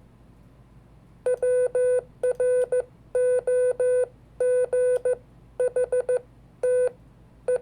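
Morse code (CW) keyed out as an on-off beeping tone. It comes as a string of about six characters of short and long beeps, starting about a second in, with short gaps between the characters.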